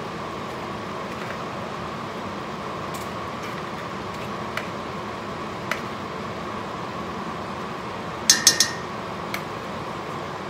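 Utensil and bowl knocking against a stainless steel stockpot while grated vegetables are scraped in, over a steady background hiss. A few light taps come first, then about eight seconds in a quick run of sharp metallic clinks that ring briefly.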